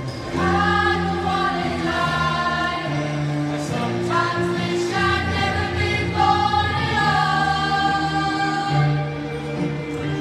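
Music: a group of voices singing together in harmony, with held notes that waver, over a sustained low instrumental backing.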